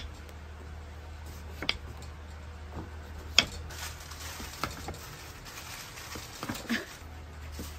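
Scattered light knocks and clicks of food packages and containers being handled and set down on a table, five or six in all, the sharpest about three and a half seconds in, over a steady low hum.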